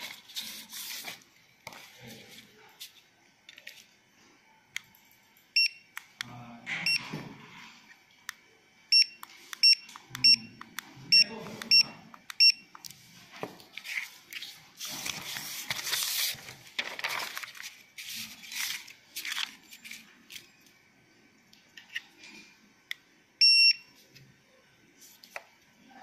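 Generalscan GS M100BT mini barcode scanner giving short high beeps as it reads barcodes, each beep confirming a good scan: a single beep, then a quick run of about eight, and a longer beep near the end. Rustling of the paper sheets and hand-handling noise fill the gaps.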